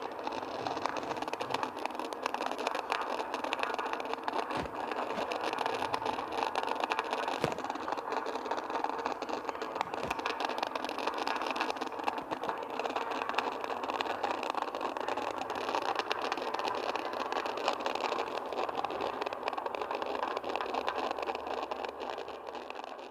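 Fireworks giving off a continuous dense crackle with hiss, many rapid fine pops, steady throughout.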